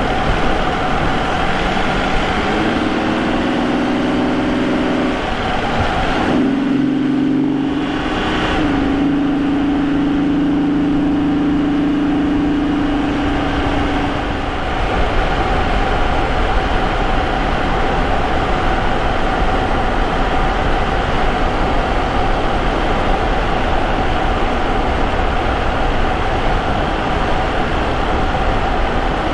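Vauxhall Omega's 3.2-litre 24-valve V6 (Y32SE), heard close to its K&N air filter, accelerating hard with the engine note climbing, breaking and dropping around six seconds in and again near fifteen seconds as the four-speed automatic shifts up. It then settles into a steady drone at cruising speed, with road noise underneath.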